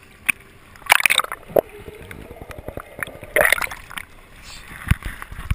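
Sea water sloshing and splashing against a GoPro's waterproof housing held at the surface while swimming, with two loud splashes about one and three and a half seconds in and several short slaps of water.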